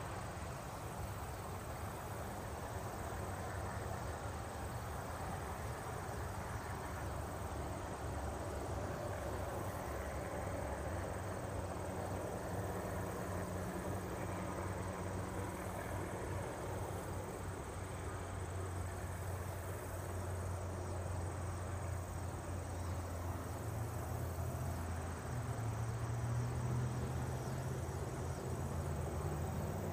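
Distant helicopter, its rotor beating steadily; it grows louder and a little higher in pitch in the last few seconds. Insects chirp in the background.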